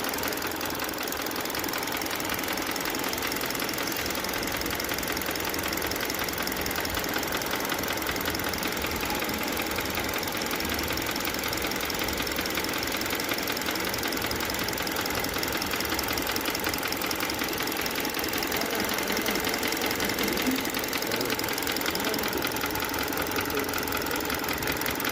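A vehicle engine running steadily with a rapid, even knock throughout. This is an abnormal engine noise.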